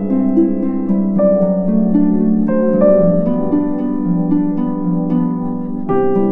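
Background music: gentle plucked harp-like notes in a slow, changing melody over sustained chords.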